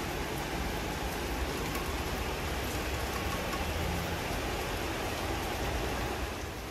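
Steady rain falling, an even hiss with faint scattered drop ticks and a low rumble underneath.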